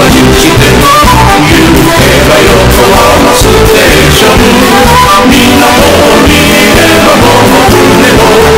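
Music turned up until it clips, heavily distorted and pinned at full loudness, with a steady beat.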